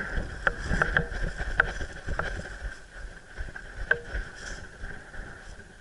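Airsoft gunfire: about five sharp single cracks at irregular intervals over a low rumble.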